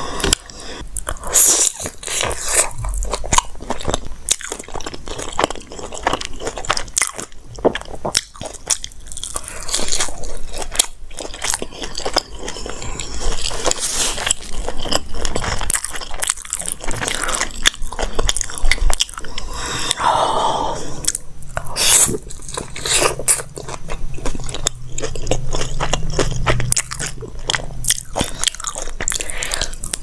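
Close-miked eating sounds on a lavalier microphone: repeated biting and chewing of mouthfuls of food, with wet mouth noises and small crunches throughout.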